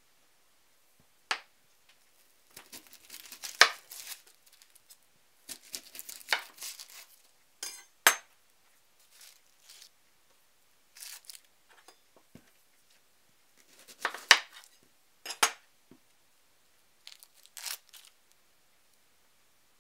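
An onion being cut and peeled on a cutting board: its dry papery skin crackles and tears, with several sharp knocks of the chef's knife on the board. No music or voice over it.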